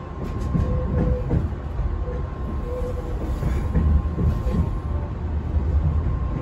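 Train running on rails, heard from inside the carriage: a steady low rumble with a faint constant high tone and a few brief squeaks.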